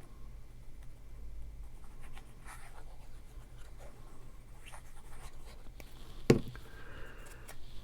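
Paper pieces being handled and pressed onto a card: faint scratchy rustling, with one sharp tap about six seconds in.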